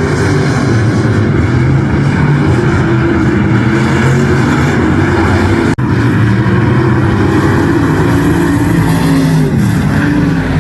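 Race car engine running hard at speed, a loud steady engine note. There is a momentary break a little over halfway through, and near the end the pitch dips briefly and comes back up.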